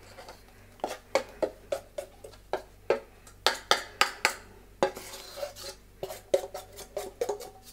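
A fork scraping and knocking against a stainless steel mixing bowl while sticky dough is scraped out of it: an irregular run of sharp metallic clicks and scrapes, some ringing briefly.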